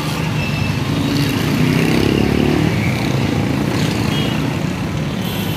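Street traffic: a steady low rumble of passing vehicles, with a motor vehicle engine swelling and fading about two seconds in.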